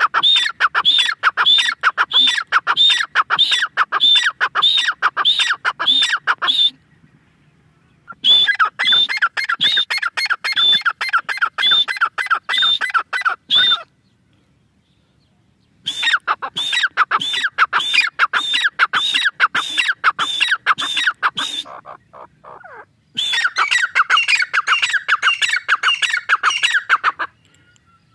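Grey francolin calling: a loud series of rapidly repeated high notes, given in four bouts of about four to six seconds with short pauses between.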